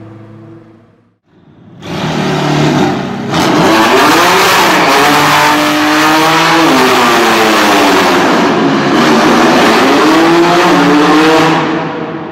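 A high-performance car engine accelerating hard and very loud. It comes in sharply about two seconds in, its note rising and falling several times as it revs and changes gear, and fades away near the end.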